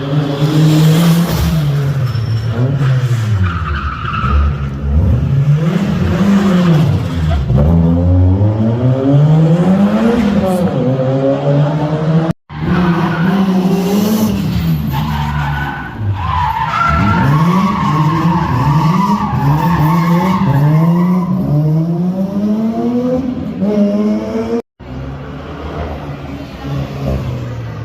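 A car engine revving up and down again and again with tyres squealing, as in drifting or a burnout. The sound cuts off abruptly twice, about 12 and 25 seconds in.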